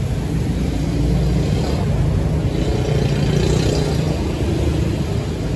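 Road traffic from the street: a steady low rumble of motor vehicles going by, swelling a little in the middle.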